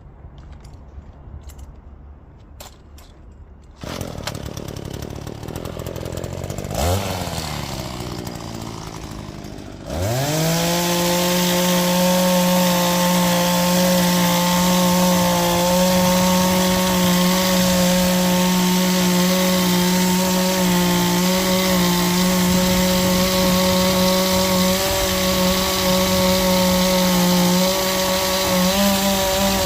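Echo HCA 265ES hedge trimmer's small two-stroke engine starting about ten seconds in and then running at a steady, fairly high pitch, the note wavering slightly near the end. It is running badly, which the owner suspects comes from an air leak at the carburettor or a gasket.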